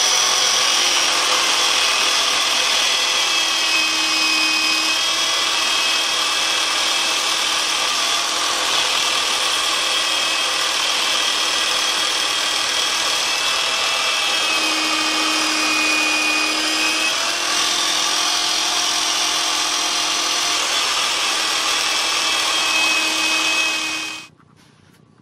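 Electric drill motor driving a saw blade on a homemade table saw, running with a steady whine while cutting a thin wooden strip. The pitch dips slightly a few times, and the sound cuts off abruptly about a second before the end.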